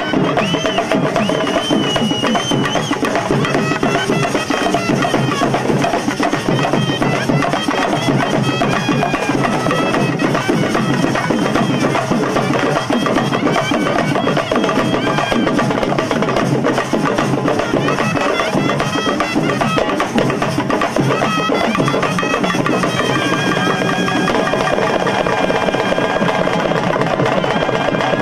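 Tamil folk temple-style music: reedy nadaswaram-type pipes play a wavering, ornamented melody over dense, continuous drumming on a thavil and large stick-beaten drums. The pipes settle into longer held notes near the end.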